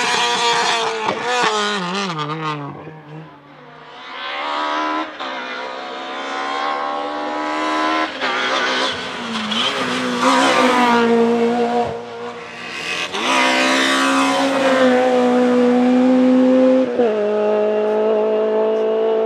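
Naturally aspirated Honda K20 VTEC inline-four engines of racing Civic Type-R EP3s accelerating hard. One car's engine fades away, then another revs up through the gears, its pitch climbing and then jumping at each gear change, and holds high revs near the end.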